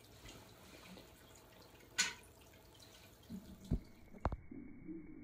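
A small splash at the water surface of a home aquarium about two seconds in, over faint dripping water, followed by two dull knocks near the end.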